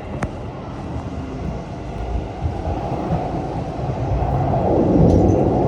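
Tokaido Line commuter train running on the rails, heard from inside the carriage: a steady low rumble with a sharp click just after the start, swelling louder near the end.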